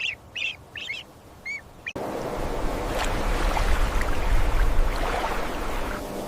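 A duckling peeping in short high calls, several in quick succession. About two seconds in, the sound cuts abruptly to a steady rushing noise with a low rumble.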